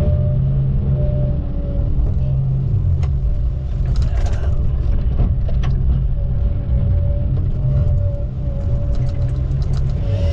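Motor vehicle running: a steady low engine rumble with a wavering drone above it and scattered light rattles and knocks.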